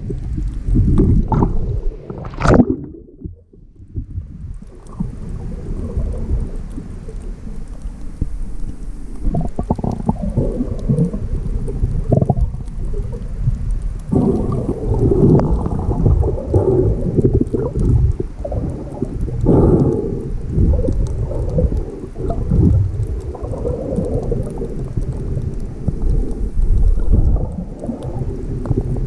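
Underwater sound picked up through an action camera's waterproof housing: a muffled, irregular low rumble and gurgling of moving water that swells and eases every second or two, with one sharp, brief sound about two and a half seconds in.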